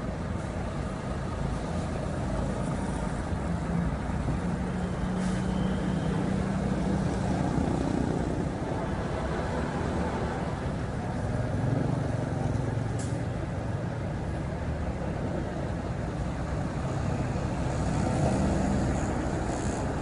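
Hino RN285 coach buses' diesel engines rumbling past one after another in a convoy, with traffic noise.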